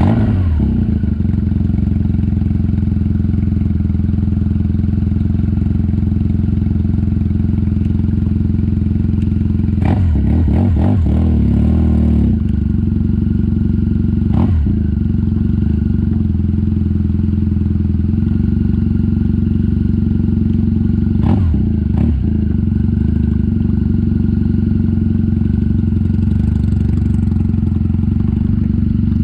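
BMW R nineT's 1170 cc boxer twin running steadily at low revs just after starting, idling and then carrying the bike slowly across grass. A few short clunks and knocks come through about a third of the way in and again around two-thirds in.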